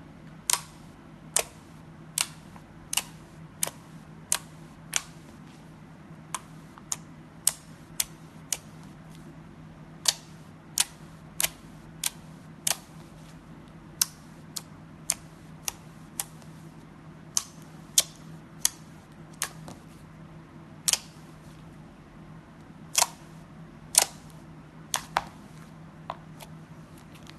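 Slime being pressed and folded by hand, giving off sharp clicking pops, about one to two a second with a few short pauses, over a faint steady low hum.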